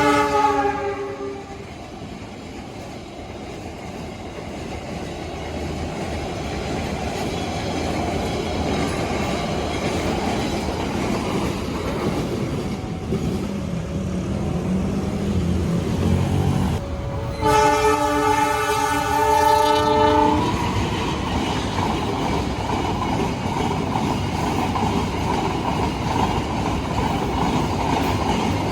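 Passing train: a diesel locomotive's horn sounds a chord that drops slightly in pitch and dies away in the first second or so. Then the rumble of a train builds steadily. The horn sounds again for about three seconds past the halfway point, and the train runs by with its wheels clattering over the rail joints.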